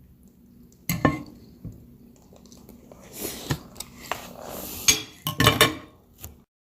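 Dishes and cutlery clinking and clattering in a few scattered knocks, the loudest cluster about five seconds in.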